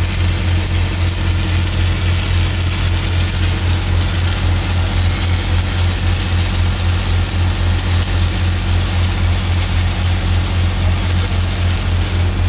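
A stick-welding arc crackling and sizzling steadily as the cap pass is laid on a 16-inch steel pipe, over the steady low hum of a Miller Big Blue 600 diesel engine-driven welder running under load.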